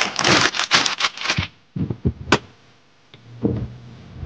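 Brown paper takeout bag rustling and crinkling as it is handled, for about the first second and a half, followed by a few short soft knocks.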